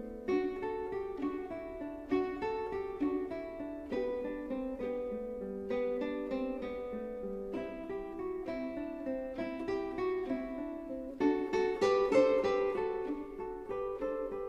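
Background music: a plucked acoustic guitar picking out notes one after another, a little louder about eleven seconds in.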